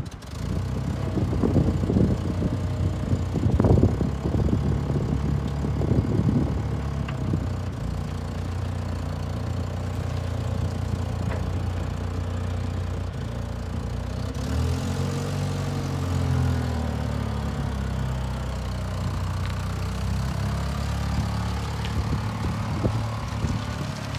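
Datsun FG105 forklift's LPG-fuelled engine running, with a few uneven louder surges in the first several seconds, then the engine speed rising about halfway through as the forklift moves off and holding steady after.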